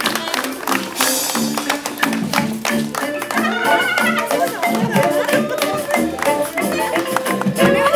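Live band music: a wind instrument carries a melody over a steady, rhythmic accompaniment.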